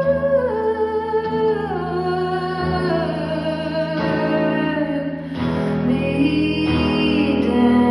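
Live solo performance: a woman singing long held notes that slide downward, over her own electric guitar played through an amplifier, with the notes changing about five seconds in.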